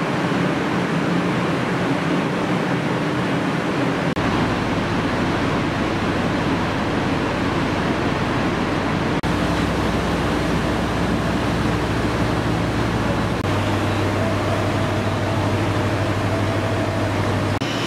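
Steady hiss and hum of an Abukuma Railway 8100 series electric train standing at the platform with its onboard equipment running. The low hum shifts abruptly about 4, 9 and 13 seconds in.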